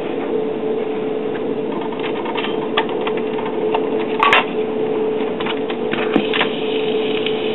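VM-built record changer of a late-1950s Zenith Cobra-Matic record player cycling to start a record: mechanical clicks and clatter over a steady hum, with one sharp click about four seconds in.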